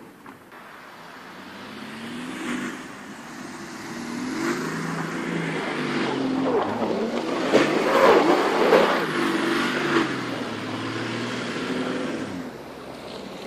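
BMW X5 E53 3.0d's inline-six turbodiesel revving up and down in steps as the car slides on snow with its wheels spinning. It grows loudest about two-thirds through, with a noisy rush of tyres throwing snow, then fades back.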